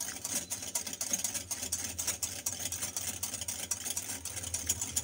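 Wire whisk beating egg yolks in a glass bowl over a double boiler: a fast, steady run of clicks and scrapes of metal on glass, over a constant low hum. The yolks are being whisked without pause while they cook so that they do not form lumps.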